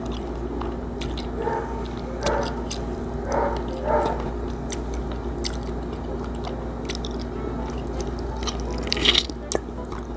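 Close-up wet eating sounds of ripe mango: biting and sucking the soft flesh off the skin, with many small chewing and smacking clicks and a louder sucking slurp about nine seconds in.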